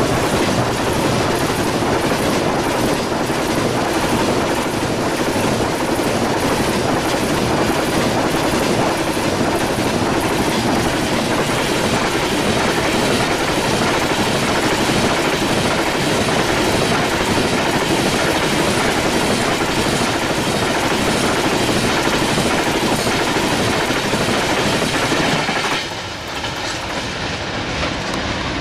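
Loaded coal hopper wagons of a fast freight train rushing past close by, a loud steady rumble with wheels clicking over the rail joints. About 26 seconds in the noise drops suddenly as the last wagon goes by and the train draws away.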